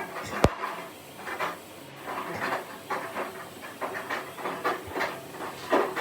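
General Electric washing machine running a wash cycle, with water hissing and surging in irregular splashy bursts, and a sharp click about half a second in.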